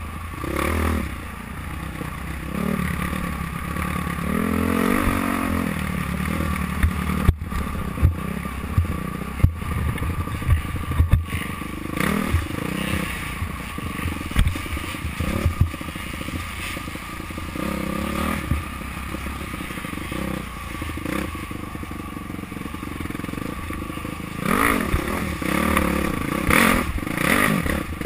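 Dirt bike engine heard from on board, revving up and down as the rider works the throttle. Sharp knocks and rattles stand out between about seven and eleven seconds in as the bike jolts over the rough trail, and the engine revs hard again near the end.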